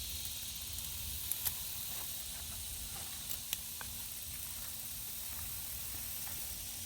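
Steady high-pitched outdoor hiss with a low wind rumble underneath, broken by two pairs of faint clicks about one and a half and three and a half seconds in.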